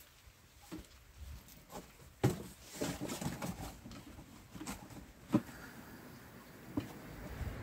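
Cardboard carton being folded up into a box by hand: a few sharp knocks and slaps of the flaps, the loudest about two seconds in, with cardboard rustling between them.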